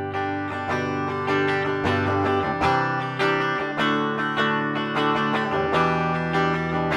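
Yamaha ERG121 electric guitar played clean on its bridge humbucker, picking a sequence of chords that change about once a second.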